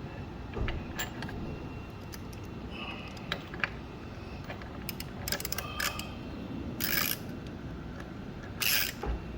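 Hand tools working a motorcycle frame-slider bolt: scattered sharp metallic clicks and clinks, with two short ratcheting runs, one about seven seconds in and one near the end, as the bolt is driven in with a hex bit.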